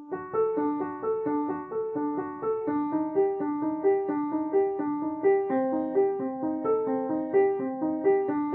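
Background piano music: a gentle repeating broken-chord figure of evenly paced notes, about three a second.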